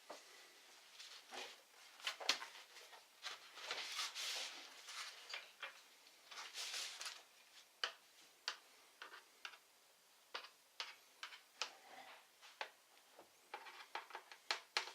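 Hand work on a laptop: irregular light clicks and taps of small plastic and metal parts, with a few short scraping rustles.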